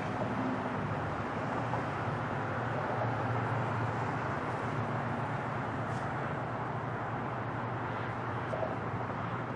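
Boeing 747's four jet engines at takeoff thrust as the airliner climbs out: a steady, low jet rumble that swells slightly about three seconds in.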